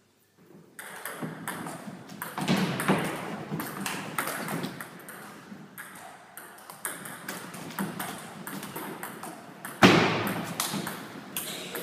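Table tennis rally: the ball clicking off the bats and the table again and again, starting about a second in, with a loud hit about ten seconds in.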